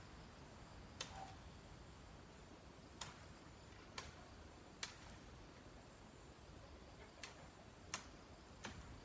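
Short, sharp cracks of twigs and small branches snapping, about seven scattered irregularly over a faint steady hiss with a thin high whine.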